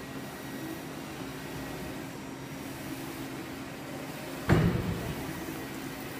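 Steady hum of a running UV flatbed phone-case printer, with a single sharp thump about three-quarters of the way through.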